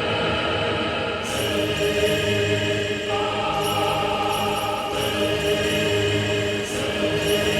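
Background music: a slow orchestral game soundtrack with a choir-like sound and long held chords.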